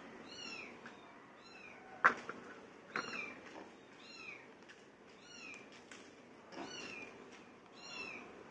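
A cat mewing: short high-pitched mews rising and falling in pitch, repeated about once a second, faint. Two sharp clicks come about two and three seconds in.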